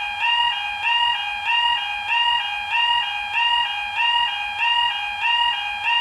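British-style level crossing warning alarm, a two-tone yodel that alternates between a higher and a lower pitch about one and a half cycles a second, sounding as the crossing lights flash and the barrier lowers for an approaching train.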